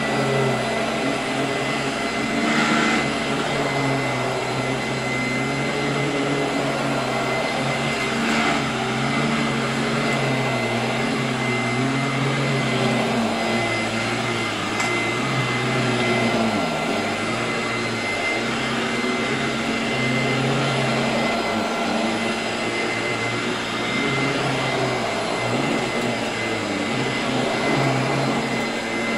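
Royal 18-inch vacuum cleaner running steadily with a motor whine, just finishing spinning up to full speed as it begins, its pitch wavering slightly as it is worked over the floor. A couple of brief rasps come through, about three and eight seconds in.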